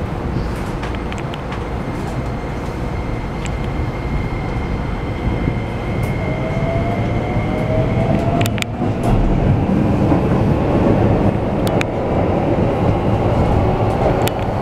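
Keikyu New 1000-series electric train, heard from inside the car, pulling away and gathering speed. A steady high whine from the Toyo hybrid-SiC VVVF inverter is joined about halfway through by motor tones rising in pitch. Running rumble and wheel-on-rail noise grow louder, with a few sharp clicks from the rails.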